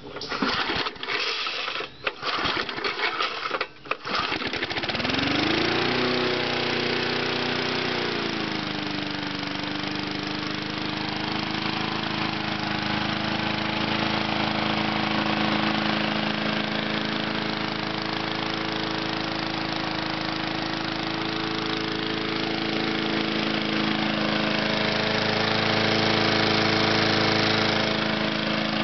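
Cold start of a 1981 Wizard push mower's small Briggs & Stratton engine: a few seconds of recoil-start pulls and clatter, then the engine catches about four seconds in, speeds up, settles briefly and runs steadily.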